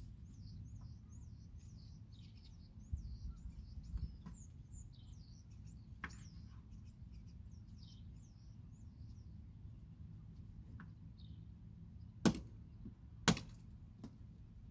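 Wild birds chirping in quick, high calls through the first half. Near the end come two sharp chops about a second apart, a blade cutting up a chicken.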